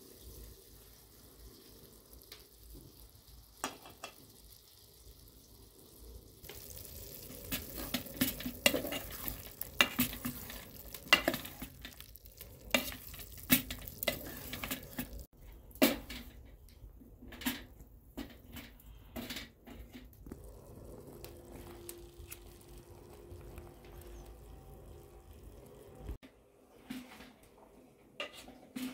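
Diced chicken frying in a metal pot: a sizzle sets in a few seconds in and eases about halfway, with repeated knocks and scrapes of a spoon stirring against the pot.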